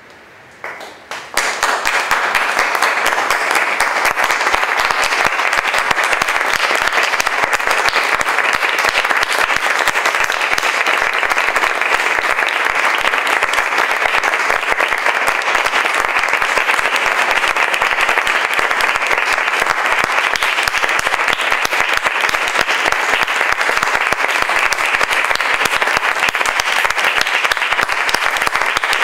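Audience applauding: a few scattered claps, then full, steady applause from about a second and a half in.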